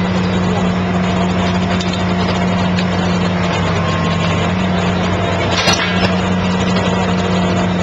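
Excavator diesel engine running steadily under hydraulic load while the pile cutter's cylinders squeeze a concrete pile. Its note sags slightly for about a second midway. A brief crackle comes near the six-second mark.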